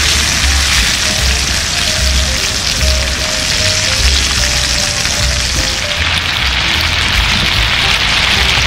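Pork belly sizzling steadily in a frying pan, under background music with a light melody and a pulsing bass beat.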